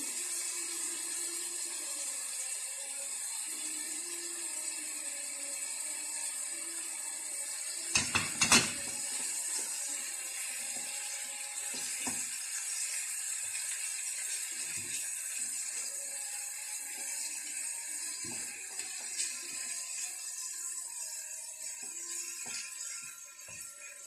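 Sliced onions and chicken breast strips sizzling steadily in a hot frying pan, with a silicone spatula stirring and knocking against the pan. A short loud clatter about eight seconds in, and lighter knocks now and then after it.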